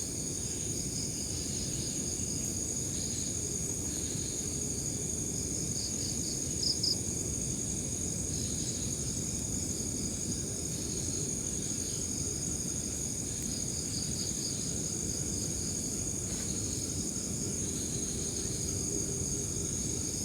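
Night insects such as crickets chirping: a steady high-pitched drone with pulsing trills, over a low rumbling noise. Two short, louder chirps stand out about six and a half seconds in.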